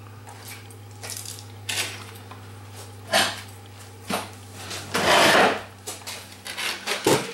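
Metal tools clinking on a workbench: several light clicks and taps, with a longer scraping clatter about five seconds in, the pick and soldering iron being handled for desoldering. A low steady hum runs underneath and stops about five seconds in.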